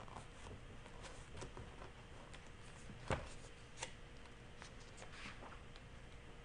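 Faint rustles and light taps of fingers handling the paper pages of a large book, with a sharper tap about three seconds in and a smaller one just after.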